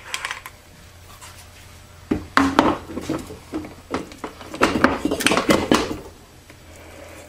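Steel clutch drum and planetary gear parts of a Ford 6R80 automatic transmission clinking and clattering as they are handled and set down onto the stacked gear train, in two spells of metallic knocks about two seconds in and again around five seconds, over a steady low hum.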